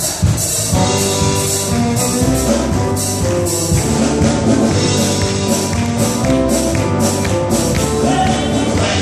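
Live southern gospel band playing an up-tempo song, with drums and keyboards under a high percussion hit about twice a second.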